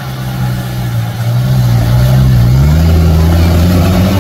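Off-road jeep engine running at a steady speed, then revving higher about two and a half seconds in and holding the higher revs.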